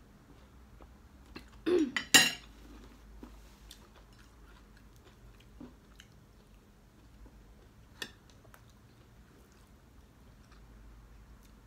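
Eating at the table: a loud slurp from a spoon of spicy stew about two seconds in, then quiet chewing with a few small clicks of cutlery and dishes, one sharper click about eight seconds in.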